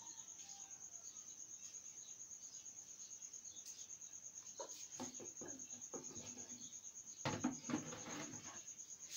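A cricket chirping steadily in a fast, even pulse at one high pitch. Short louder sounds come around five seconds in, and a louder burst of lower noise comes about seven seconds in.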